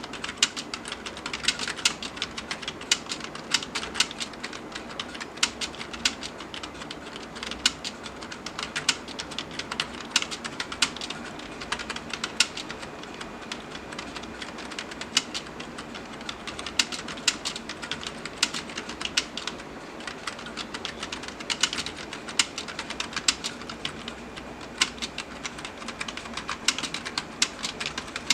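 Steady, fast typing on a computer keyboard: an unbroken stream of key clicks, several a second, without pauses.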